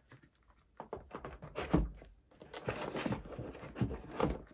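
Cardboard card boxes being handled and set into a wooden box: scraping and rustling with light knocks and thunks against the wood, the loudest about two seconds in and again near the end.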